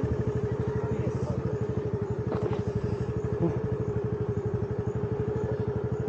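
Motor scooter engine running steadily at low revs with an even, rapid beat, while the scooter is stuck in mud.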